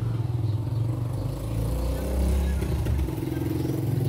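A motor vehicle engine running with a low hum that swells about two seconds in and then eases.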